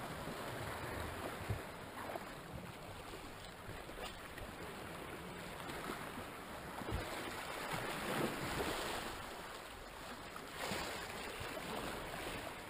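Small sea waves washing and lapping against the rocks, a steady wash that swells gently every few seconds. A single sharp click sounds about a second and a half in.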